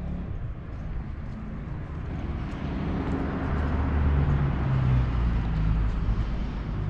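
A motor vehicle's engine and road noise: a low rumble that grows louder a few seconds in, then holds.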